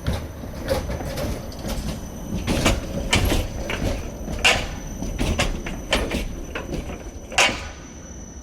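Tram in motion: a low rumble with irregular sharp knocks and clatter from the car body and wheels, about a dozen in all, the loudest a few seconds in and near the end, over a faint steady high whine.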